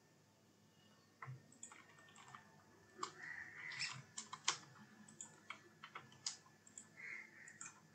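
Faint, irregular computer mouse clicks and keyboard key taps, starting about a second in.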